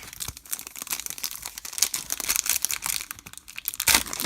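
Wrapper of a baseball card pack crinkling as it is handled and opened: a run of sharp high crackles with a louder crackle near the end.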